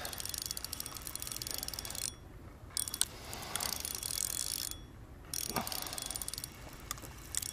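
Fishing reel clicking rapidly in three spells of about two seconds each, with short pauses between, while a hooked fish pulls on the line.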